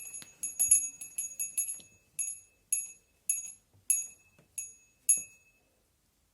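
Small bell of a miniature home bell tower struck over and over with a high, bright ring, quickly at first, then slowing to about two strikes a second and stopping a little after five seconds in.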